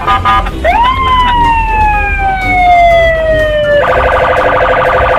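Police patrol car's electronic siren: a few short chirps, then one tone that sweeps up and slowly falls, then a fast warbling yelp from almost four seconds in, over a low rumble of traffic.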